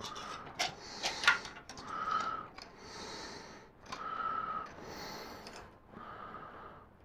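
A person breathing hard through the nose, about one breath every two seconds, one half of each breath carrying a faint whistle and the other a soft hiss. A couple of light clicks come about a second in.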